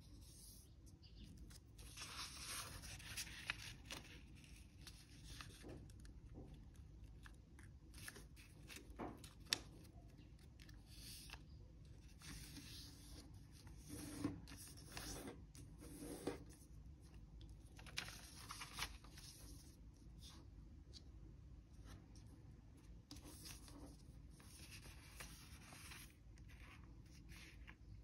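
Origami paper being folded and creased by hand on a tabletop: faint intermittent rustling and crinkling as the sheet is lifted and laid over, with fingers sliding along the folds and a few sharp clicks as creases are pressed down.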